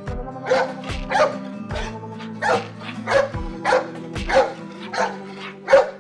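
A dog barking repeatedly, a short bark about every half second, over background music.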